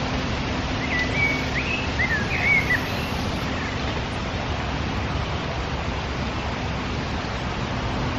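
Steady wind noise on the microphone, with a small bird giving a few short chirping notes between about one and three seconds in.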